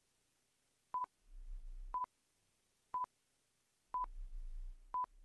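Quiz countdown timer beeping: five short beeps of one steady pitch, one a second, counting down the answer time.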